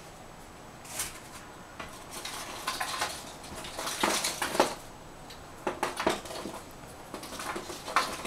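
Irregular bursts of light clinking and clattering of hard objects knocked together, a few seconds apart, some with a brief ring.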